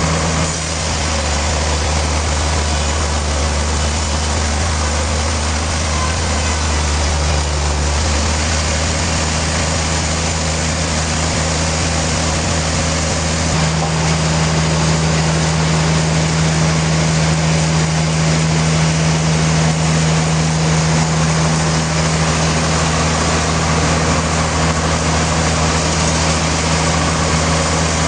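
Sawmill machinery running steadily: a constant motor hum under a dense hiss. The hum changes about halfway through.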